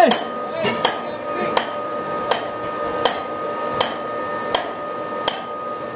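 Evenly spaced metallic knocks, about four strikes every three seconds, each with a short bright ring, over a faint steady hum.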